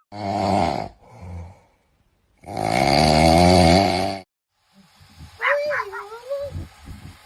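A dog vocalising: a short pitched sound, a fainter one, then a longer one of about two seconds with a wavering pitch. After a brief gap come higher, thinner whines that rise and fall.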